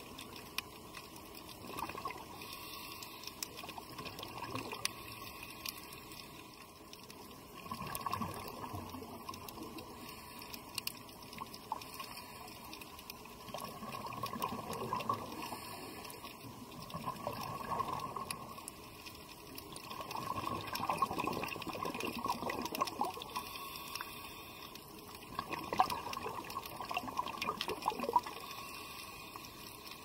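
Underwater sound of a scuba diver breathing, heard through the water: exhaled bubbles from the regulator gurgle out in surges every few seconds, with faint scattered clicking between them.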